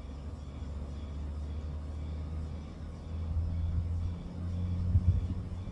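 Low engine rumble from a motor vehicle, growing louder about three seconds in.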